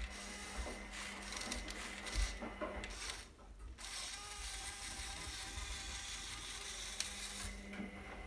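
Small electric motors and plastic gear trains of a motorized Lego pneumatic excavator running, with a clicking, ratchety gear noise. The sound drops off briefly about three seconds in, then runs more evenly.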